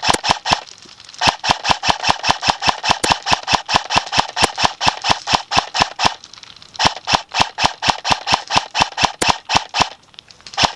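Airsoft guns firing on full auto in long bursts of sharp cracks, about seven shots a second, with brief breaks about a second in, around six and a half seconds in, and near the end.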